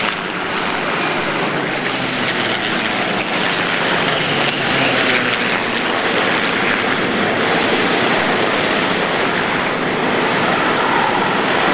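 A formation of propeller-driven piston-engined warbirds flying past, heard as a steady, rushing drone of many engines.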